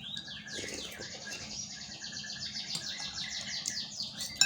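Birds chirping: a fast, steadily repeating high-pitched trill with short whistled notes, and one sharp click near the end.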